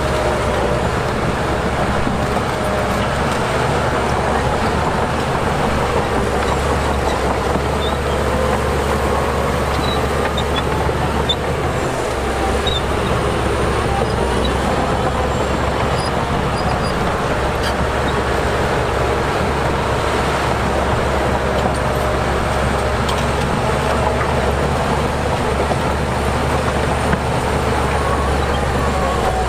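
Heavy diesel earthmoving machinery running steadily under load, a continuous low engine drone with a faint wavering higher whine over it.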